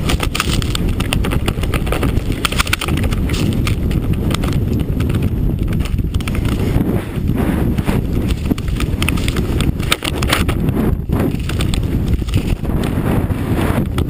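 Steady loud rumble with dense, irregular crackling knocks, as a helmet-mounted microphone picks up a snowmobile ride.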